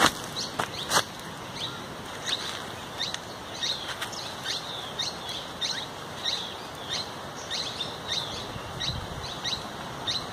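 Birds chirping: short, falling high chirps repeating about two to three times a second. A few sharp clicks come in the first second.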